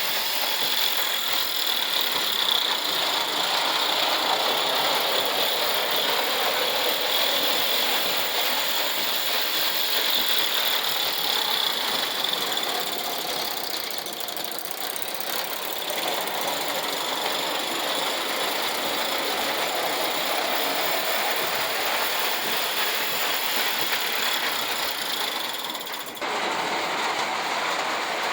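Antique Ives toy train running on its track, a steady mechanical whirring and rattle with a thin high whine. The sound dips slightly partway through and changes abruptly near the end.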